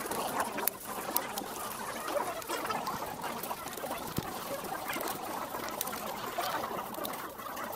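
Indistinct chatter of a crowd in a large hall, with many small scattered clicks through it, like Rubik's cubes being turned.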